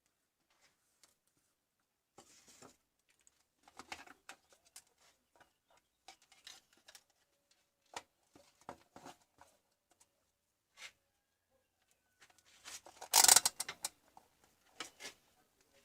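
Scattered small clicks, taps and rustles of objects being handled, with one louder rustling scrape about thirteen seconds in.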